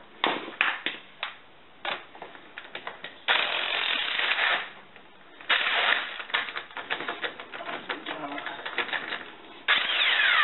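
Electric impact wrench on a car's lug nuts, run in three short bursts with clicks and clatter between them. The last burst ends with the motor winding down in a falling whine.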